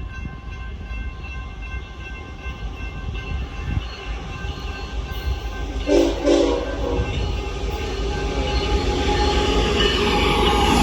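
Railroad crossing bells ringing as an approaching Union Pacific freight train sounds its horn in two short blasts about six seconds in. The noise of the oncoming train then builds toward the end.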